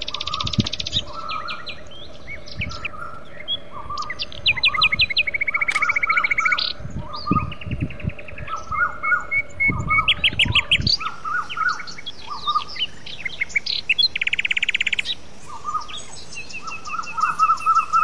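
Several birds calling and singing at once: repeated short chirps, fast trills and quick runs of high notes overlapping one another. A low steady hum lies underneath and stops about eleven seconds in.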